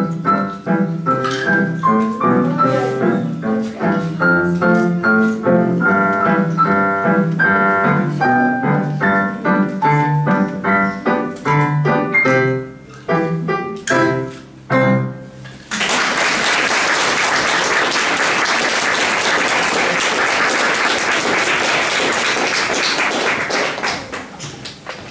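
Digital piano playing a piece that ends with a few spaced final chords, followed about two-thirds of the way through by audience applause that fades near the end.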